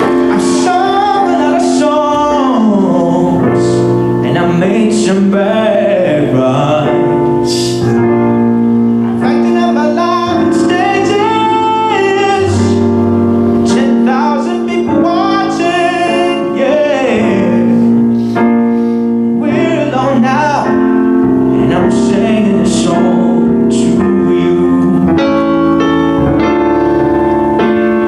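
A man singing a song while accompanying himself on a Roland piano: sustained piano chords under a wavering sung melody, played back from a video recording.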